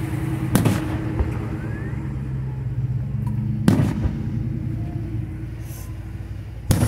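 Aerial firework shells bursting overhead: three sharp booms about three seconds apart, over a steady low hum.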